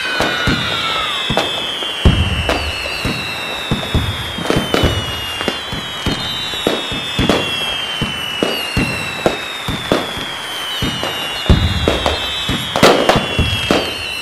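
Fireworks: repeated whistles, each slowly falling in pitch, with sharp bangs and crackling throughout.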